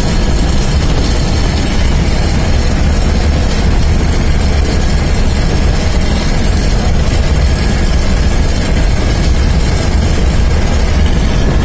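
Steady loud rumble of a vehicle driving, heard from inside the cabin: engine and road noise, heaviest in the low end.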